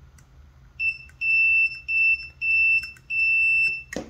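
Multimeter continuity tester beeping in five bursts of one steady high tone, the first short and the last longest, as the probe tip makes and breaks contact on a solder pad of the IR torch's LED board. The beep confirms which pad connects to the battery negative. A knock of handling comes right at the end.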